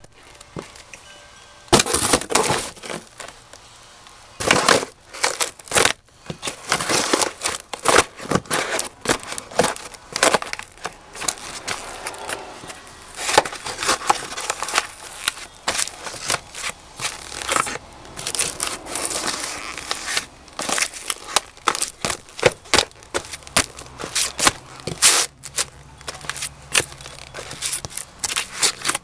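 Cardboard boxes being stomped on and crushed under heavy leather Bundeswehr Knobelbecher jackboots: a long run of loud crunches and crackles as the cardboard folds, splits and flattens, starting about two seconds in, with scuffs of the soles in between.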